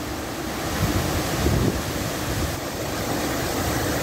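Hurricane wind and rain, a steady loud rushing noise as the gusts thrash the trees.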